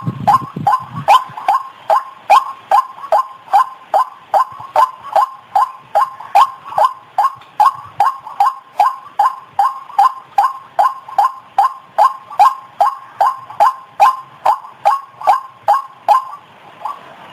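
White-breasted waterhen (ruak-ruak) lure-call recording: a steady run of short repeated call notes, about two and a half a second, with a brief pause near the end.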